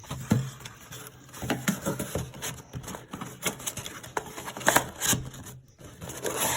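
A cardboard divider being folded and slid into a slot in a cardboard tray: irregular scraping, rustling and tapping of paperboard, loudest about five seconds in.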